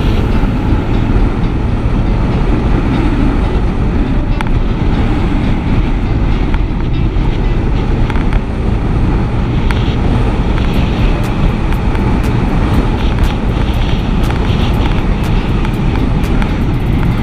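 Yamaha NMAX scooter ridden at speed down a straight, heard mostly as heavy wind buffeting on the microphone over the drone of its engine. The sound stays steady and loud throughout.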